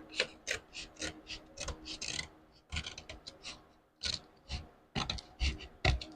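Sheet-metal repair panel being worked by hand: irregular short metallic taps and scrapes, two or three a second.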